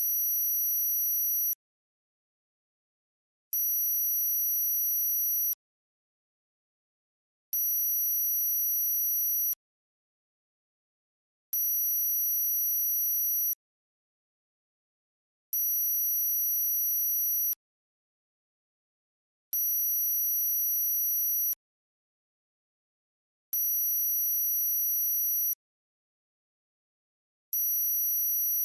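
Electronic high-pitched tone for tinnitus masking, pulsing in a steady rhythm: about two seconds on, two seconds off, repeating every four seconds. Each pulse is a steady, very high pure tone with a fainter lower tone beneath.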